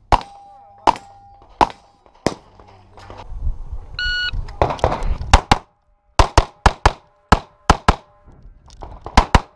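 Pistol gunfire in a practical shooting stage: a few shots about three-quarters of a second apart, then a shot timer's electronic start beep about four seconds in. Fast strings of shots from a compensated Open-division pistol follow, mostly fired in quick pairs.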